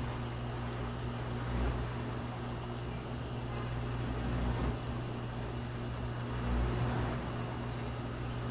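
Steady low hum of a pump motor running, one unchanging tone over a low rumble.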